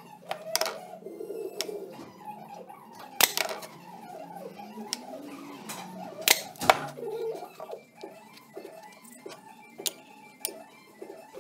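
Handheld electric nail gun firing into a wooden part. It gives a few sharp snaps: one about three seconds in, then two close together a little past halfway. Background music plays under it.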